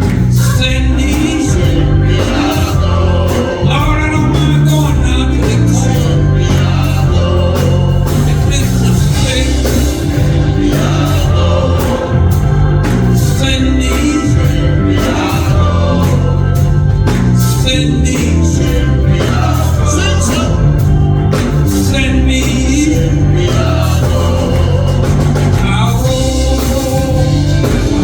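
Live gospel music: singers with a band, a strong steady bass beat and organ.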